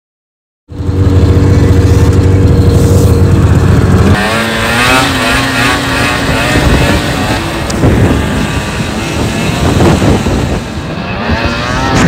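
Snowmobile engine running hard. It cuts in suddenly just under a second in, holds a steady pitch, then from about four seconds in its pitch rises and wavers up and down as the sled is ridden.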